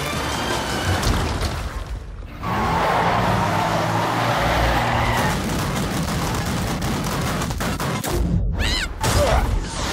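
Cartoon crash sound effects: a dense rumbling, clattering rush of noise that swells about two and a half seconds in, followed near the end by a few short falling tones.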